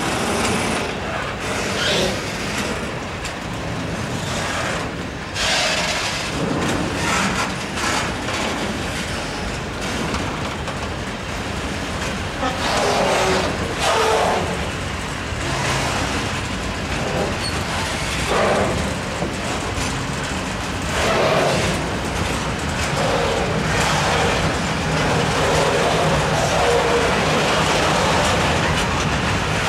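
Freight train of tank wagons hauled by an ET22 electric locomotive starting off from a stop: a steady rolling rumble with repeated knocks and clacks of the wheels over rail joints and points as the wagons roll past slowly.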